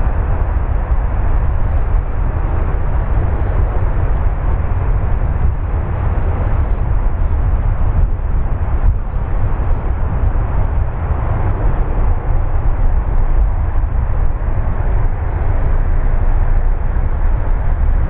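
Wind buffeting an action camera's microphone on an open beach: a loud, steady rumbling rush with no breaks.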